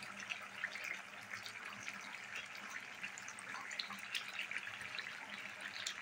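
Chicken and potato curry cooking in an open kadai: a steady sizzling hiss of the thick gravy with small scattered pops and bubbles.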